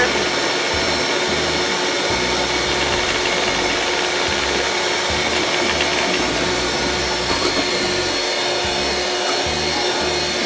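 Electric mixer running steadily, whipping cream and sugar toward stiff peaks.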